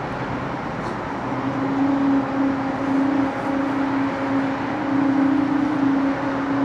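Steady hum of shake-table hydraulic machinery: a droning tone that swells and fades every second or so over a broad rushing noise.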